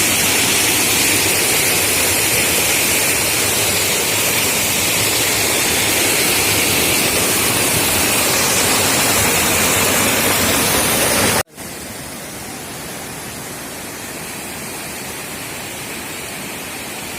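Steady rushing roar of a waterfall. About two-thirds of the way through, the sound cuts abruptly to a quieter rush of water with less bass.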